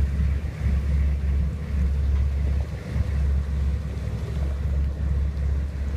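Wind buffeting the microphone in gusts over a steady low rumble from a lifeboat under way at sea, with the sea's wash behind it.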